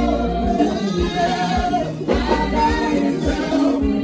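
Live band playing slow Pentecostal highlife, electric guitar over a steady low drum beat, with a man singing lead through a microphone and PA, holding long notes.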